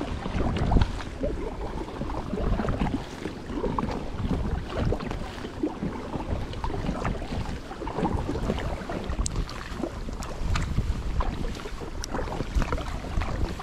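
Water splashing and lapping around an inflatable kayak out on the water, with irregular small splashes and a low wind rumble on the microphone.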